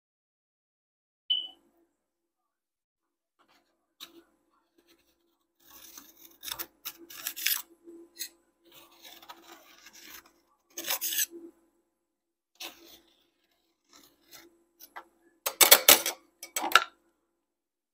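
Metal spatulas scraping frozen peanut butter ice cream off a stainless steel cold plate to roll it: a series of uneven rasping scrapes, the loudest near the end, with one short sharp click about a second in.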